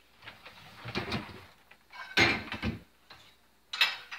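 Dishes being loaded into an open dishwasher. A soft clunk about a second in, then a louder rattling clatter of several knocks a little past halfway, as dishes meet the wire rack.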